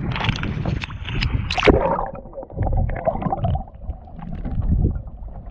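Sea water sloshing and splashing against a kayak's hull on choppy water, with wind rumbling on the microphone. There are irregular splashes, heaviest in the first two seconds.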